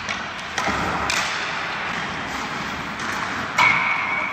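Hockey sticks hitting pucks during passing and shooting: sharp clacks about half a second and a second in, then a loud hit about three and a half seconds in that rings on as a steady high ping for about a second.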